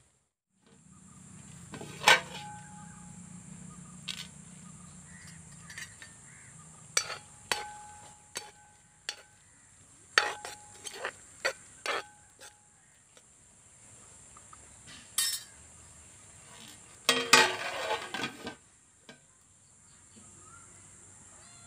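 Metal ladle clinking and scraping against a large metal cooking pot as a thick squid roast is stirred. Scattered sharp clinks, some with a short metallic ring, and a longer rattling clatter near the end as the pot is handled.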